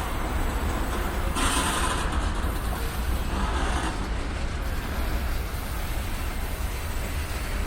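Slow-moving freight train with a steady low rumble, and two brief hissing rushes about one and a half and three and a half seconds in.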